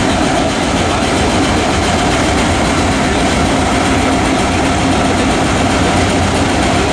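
Ferromex diesel-electric locomotive running close by, its engine making a loud, steady drone with a low hum and a steady mid-pitched tone.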